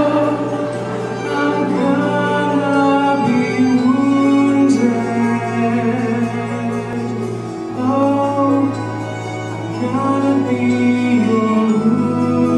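A man singing a slow melody of long held notes into a handheld stage microphone, over sustained instrumental accompaniment whose chords change every few seconds, in a live stage-musical recording.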